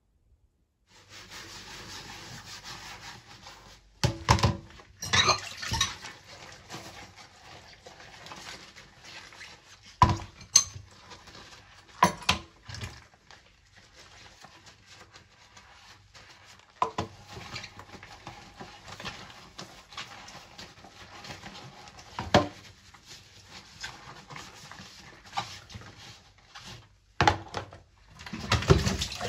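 Dishes being hand-washed in a stainless steel sink: porcelain cups, plastic containers and cutlery clink and knock now and then over soft scrubbing. Water runs loudly near the end.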